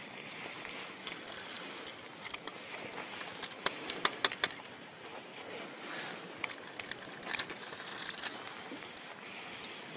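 Scattered light clicks, ticks and rustles of hands handling materials, over a steady background hiss. A small cluster of sharper clicks comes about four seconds in.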